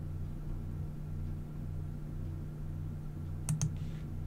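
Steady low electrical hum that swells and dips about twice a second. Two quick computer mouse clicks come about three and a half seconds in.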